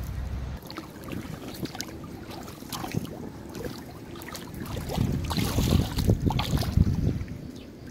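Dry twigs and branches rustling and snapping, with water splashing as hands reach into a brush pile lying in a pond; busiest and loudest from about five to seven seconds in.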